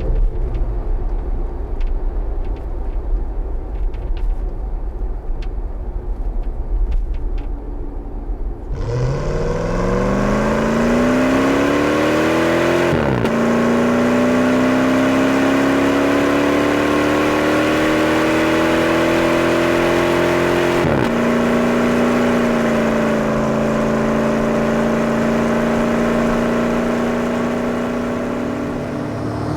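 Jeep Grand Cherokee 4.7 V8 with a Magnaflow exhaust rumbling low, then about nine seconds in pulling away and accelerating, its note rising steeply. The pitch drops sharply at upshifts about thirteen and twenty-one seconds in, and the engine then holds a steady cruising drone.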